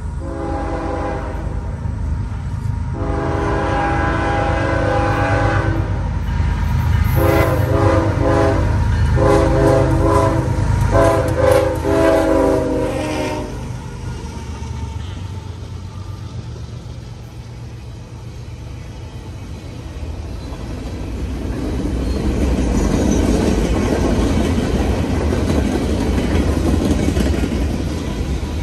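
A CSX freight train led by GE diesel locomotives sounds its multi-chime air horn in a series of long and short blasts over the low rumble of the engines. The horn stops about halfway. Then the loaded train's cars roll past with a rising rumble and clatter of steel wheels on the rails.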